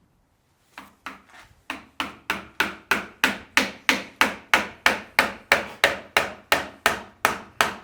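Hammer blows on wood: a steady run of sharp strikes, about three a second, beginning about a second in.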